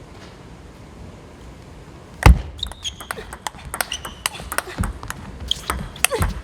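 A table tennis rally: the celluloid-type ball clicking off bats and table in quick succession, starting with a sharp loud hit a little over two seconds in, with short high squeaks among the hits, in a large sports hall.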